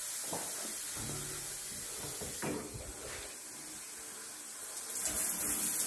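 Steady hiss of running water with a few soft handling knocks; about five seconds in the shower is turned on and a louder spray of water starts. The hot water is being run through to purge air from the line after the instantaneous water heater was reset.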